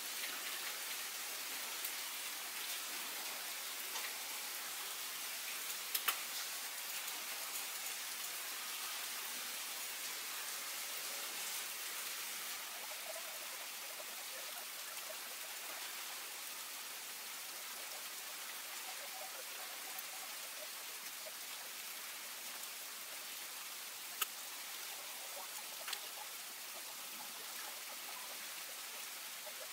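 A steady, even hiss like rain, with a few faint clicks.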